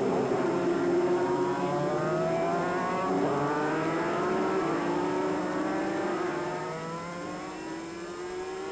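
Several 250cc two-stroke road-racing motorcycles at full throttle. Their engine notes overlap and rise and fall in pitch as the riders work through the gears, fading a little near the end as one bike pulls away.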